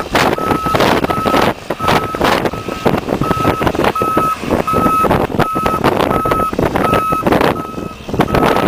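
Reversing alarm of a Kässbohrer snow groomer beeping steadily, about three beeps every two seconds, over the groomer's engine running and wind buffeting the microphone.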